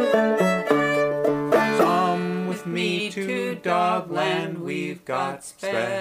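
Bluegrass-style theme song music with quick plucked banjo notes; a bit before halfway in, the picking thins out and a wavering melody with vibrato takes the lead.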